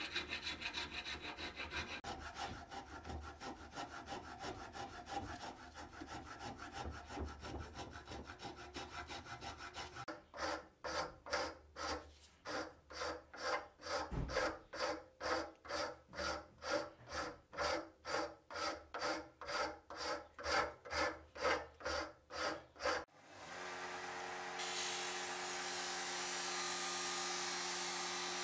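Hand file rasping back and forth on a wooden handle clamped in a vise, in quick strokes at first, then in slower, separate strokes about two a second. About 23 seconds in, this gives way to a Scheppach electric disc sander humming, and a second or so later the wood starts hissing against the sanding disc.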